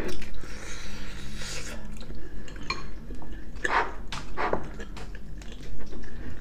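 People eating braised chicken: chewing and mouth sounds, with chopsticks and a metal spoon clicking against ceramic bowls. A few louder sharp sounds come in the middle.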